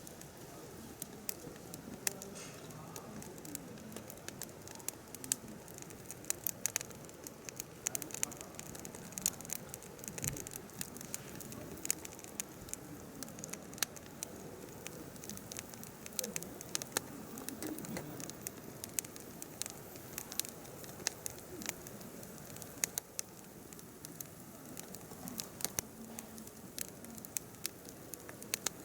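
Firewood burning in a mesh fire stand, crackling with many sharp pops scattered irregularly over a soft, low rustle of the flames.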